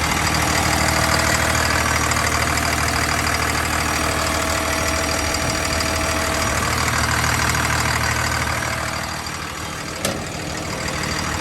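CAT D6M XL dozer's diesel engine idling steadily. A single sharp click comes about ten seconds in.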